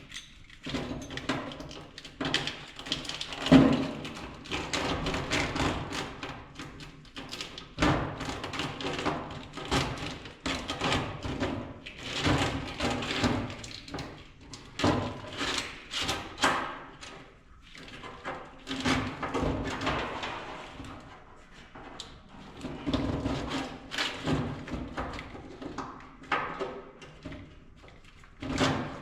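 Irregular knocks, clunks and rattles of hands and tools handling parts while a wiring harness is worked into a truck, some strikes sharp and some dull, with brief pauses between bursts.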